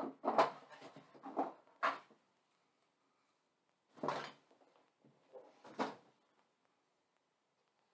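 Irregular short knocks and scrapes: several in quick succession, a pause of about two seconds, then three more.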